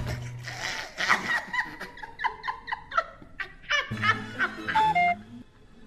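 A woman laughing hard in a quick run of ha-ha-ha peals lasting about four seconds, over background music; the laughter stops about five seconds in.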